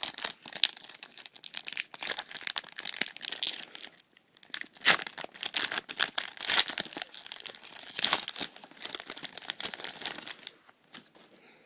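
Plastic wrapper of a baseball-card rack pack being torn open and crinkled: a dense run of crackling with a short lull about four seconds in, stopping about ten and a half seconds in.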